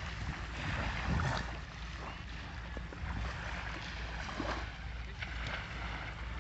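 Wind buffeting the microphone over the soft wash of small waves lapping at a sandy shoreline, with a sharp click at the very end.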